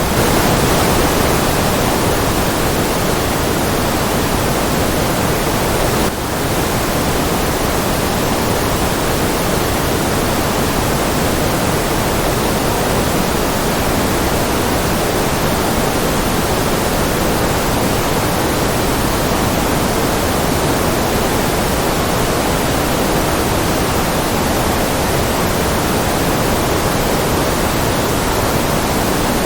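Steady generated white noise: an even, unbroken hiss with more weight in the lower and middle range than the top. It dips slightly in level for a moment about six seconds in.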